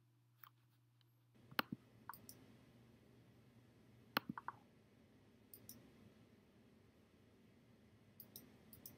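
Faint, scattered computer mouse clicks, a dozen or so short sharp clicks over near silence, the loudest about one and a half seconds in and just after four seconds.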